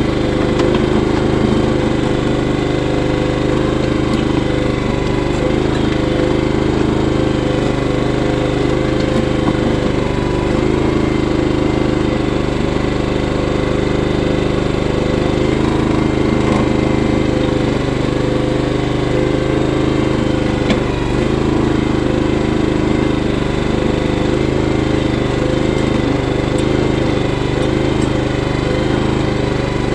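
Engine of a small bucket-equipped digging machine running steadily while it digs and packs dirt.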